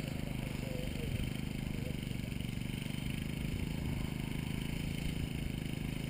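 Engine running steadily at an even speed: a low, constant drone that does not change in pitch.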